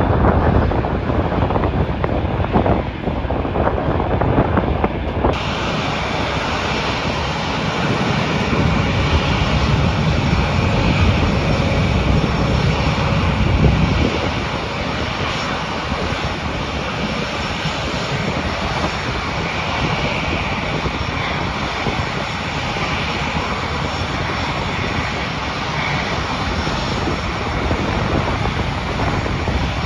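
Jet airliner engines at close range. A low rumble with wind buffeting the microphone changes abruptly about five seconds in to a steady jet hiss and whine. The deep rumble drops away about halfway through, leaving the even whine of engines idling nearby.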